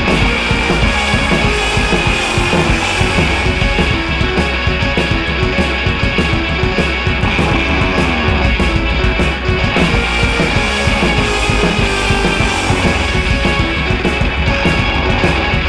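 Rock music with distorted electric guitars and a steady beat.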